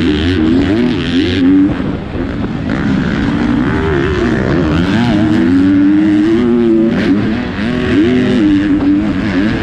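Motocross bike engine at racing speed, revving up and down again and again as the rider works the throttle and shifts gears, with other dirt bikes close by.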